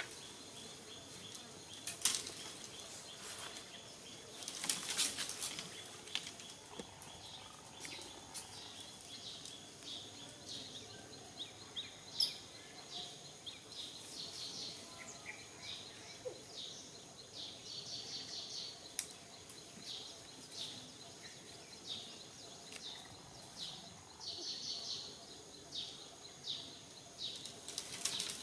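Dry bamboo leaves and twigs crackling and rustling in short, scattered bursts as a baby macaque moves and forages through the leaf litter, with a few sharper snaps, over a steady high-pitched hum.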